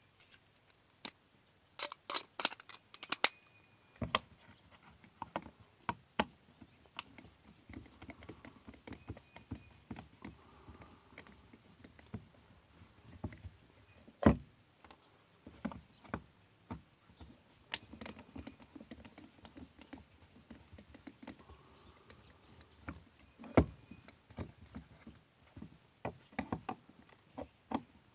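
Scattered clicks and taps of a screwdriver working Phillips-head screws out of the back of a Honda Rancher 420's plastic display module, with the tool and housing being handled. A few sharper knocks stand out, the loudest about fourteen seconds in.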